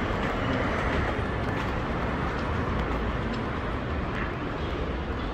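City street traffic noise: a steady rumble of passing vehicles.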